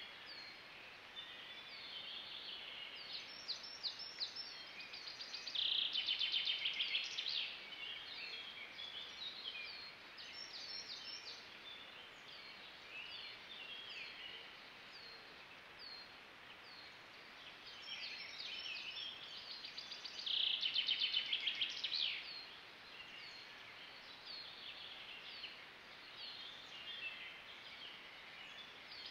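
Several songbirds singing in a spring broadleaf forest, with many short chirps and phrases. Twice a louder rapid trill lasts about a second and a half, once about six seconds in and again about twenty-one seconds in.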